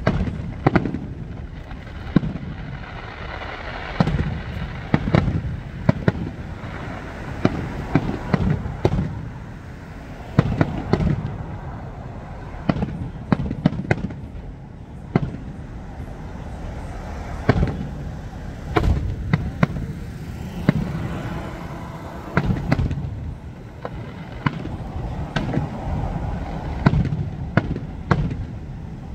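Aerial fireworks display: shells launching and bursting in an irregular run of booms and sharp cracks, often several close together, with crackling between them.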